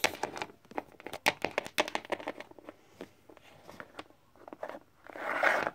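Plastic Littlest Pet Shop toy figures being handled and moved on a tabletop: a quick series of light clicks and taps, with a brief rustling scrape near the end.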